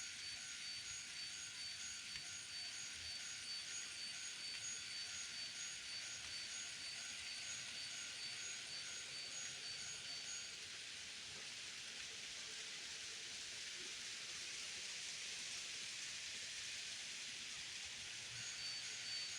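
Model-railway level-crossing warning sounder ringing in a fast, even, repeating pattern. It stops about halfway through and starts again near the end, over the steady whirr and rattle of an N-gauge train running on the track.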